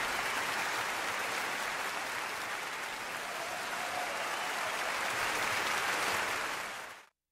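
Audience applause, steady and even throughout, fading out quickly near the end.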